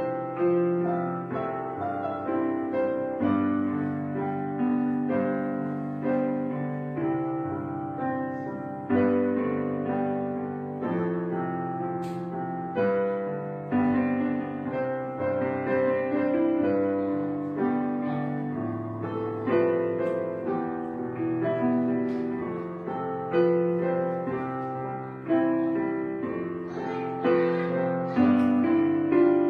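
Background piano music, slow notes and chords struck one after another, each fading before the next.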